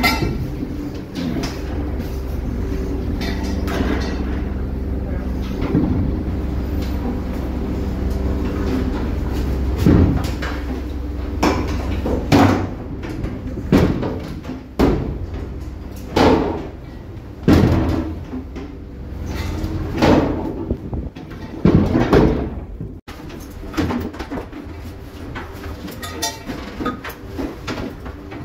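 A fishing boat's engine running with a steady low hum. From about ten seconds in, sharp knocks and clanks come every second or two as longline gear is handled on deck.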